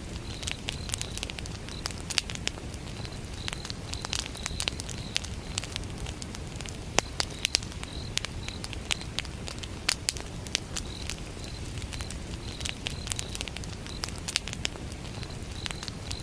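Wood campfire burning, with irregular sharp crackles and pops over a low steady rumble. Crickets chirp in short repeated high-pitched pulses that come in groups.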